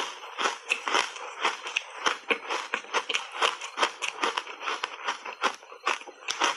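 Dry foam reshape ice coated in matcha powder being bitten and crunched between the teeth. It is a quick, continuous run of crisp, crackling crunches, about three or four a second.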